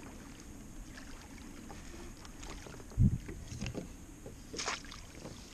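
A hooked striped bass splashing at the surface beside a kayak as it is reeled in. There is one loud dull knock about three seconds in, a few light ticks after it, and a short splash near the end.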